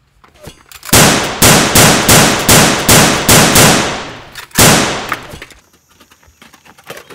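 Gunshots: a quick run of about eight shots, two or three a second, then one more after a pause of about a second. Each shot rings on and fades.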